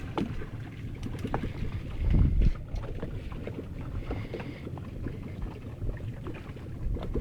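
Wind buffeting the microphone on an open fishing boat, an uneven low rumble that swells about two seconds in, with scattered small clicks and knocks from gear on board.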